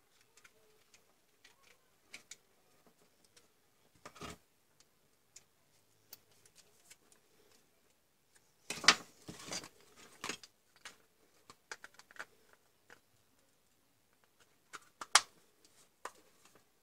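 Scattered small clicks and knocks of a Dremel 3000's plastic housing being handled and worked with a small screwdriver, with a louder burst of clatter about nine seconds in and a single sharp click near the end.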